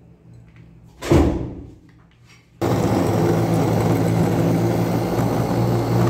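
A thump about a second in, then an electric food chopper's motor starts suddenly and runs steadily, chopping onions, garlic, green chillies and coriander in its glass bowl.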